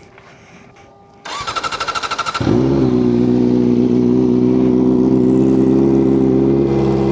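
Kawasaki ZX-4RR's inline-four engine being started: the electric starter cranks it with a fast, even pulsing for about a second, then the engine catches and settles into a steady idle.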